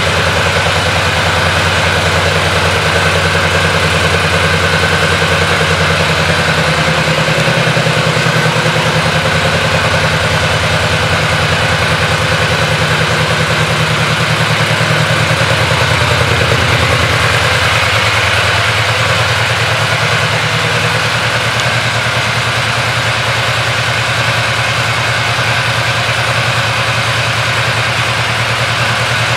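2017 Yamaha V-Max's 1,679 cc V4 engine idling steadily, just after being started.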